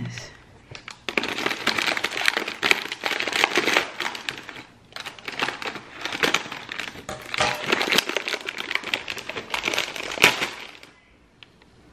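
Plastic packaging crinkling and rustling as it is snipped with scissors and pulled open by hand: a dense run of crackles and small clicks, with one sharp, louder crack near the end before it stops.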